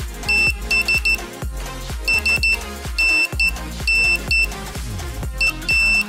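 Piezo buzzer on a DIY electronic Morse key circuit beeping Morse code as the key is pressed: one high-pitched tone keyed in short dots and longer dashes, in several groups. Background music with a heavy bass beat plays throughout.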